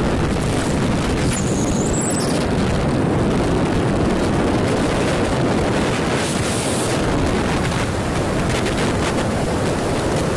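Steady rush of wind over the microphone and road noise from a car driving at speed, with no let-up.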